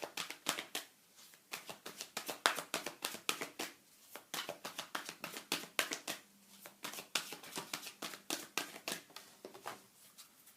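A deck of oracle cards being shuffled by hand: a quick, irregular run of crisp card slaps and flicks that thins out near the end.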